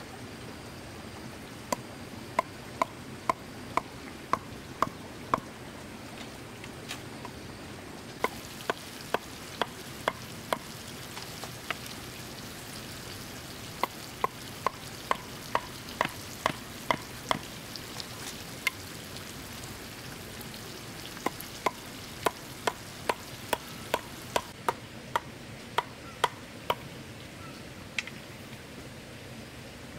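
Sharp taps in runs of several, about two a second, over a steady hiss.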